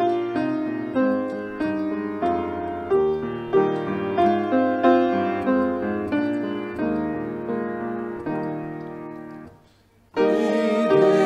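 Piano playing a slow, calm melody note by note, each note struck and dying away, fading out about nine and a half seconds in. Just after ten seconds a louder, fuller passage of ensemble music begins.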